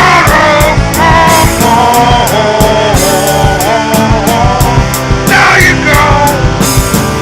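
Rock song with a steady drum beat and a melodic line over it, with no sung words: an instrumental passage.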